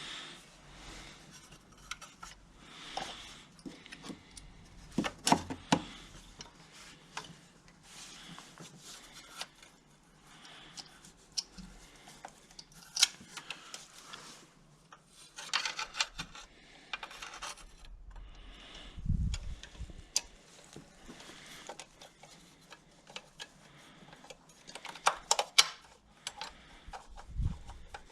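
Hands working on engine parts with tools: irregular clicks, ticks, scrapes and rubbing of plastic and metal. There are two dull thumps, one a little past the middle and one near the end.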